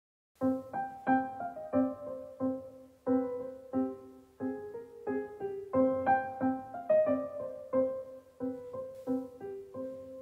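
Background piano music, starting about half a second in after silence, with gentle notes struck several times a second.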